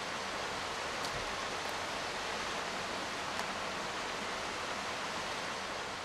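Steady, even rushing noise of outdoor ambience, with a couple of faint ticks.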